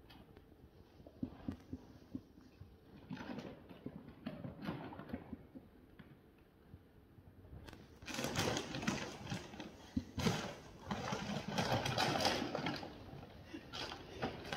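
Large plastic carrier bag rustling and crackling as a dog pushes its nose into it and works at it, searching for the hidden scent. Faint scuffs and rustles come first; about eight seconds in the crackling turns loud and busy for several seconds, then eases off.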